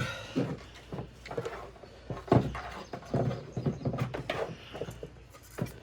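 Irregular knocks, clicks and rattles from handling the trolling motor's head and wiring during reassembly.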